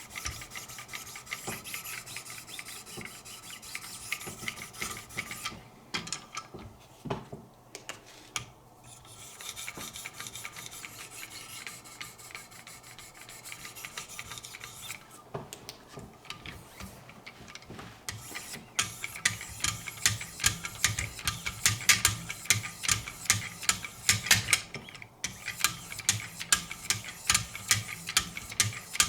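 A 2200-grit stone on a Wicked Edge guided sharpening system stroked by hand along a knife's edge, a steady scraping rub. About two-thirds of the way through the strokes turn quicker and louder.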